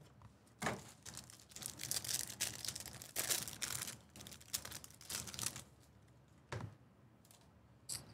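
Sports cards and pack wrappers being handled: faint, irregular rustling, crinkling and light clicks as cards are slid and flipped.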